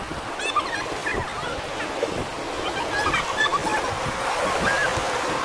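River water rushing and churning around an inflatable whitewater raft, a steady noisy wash.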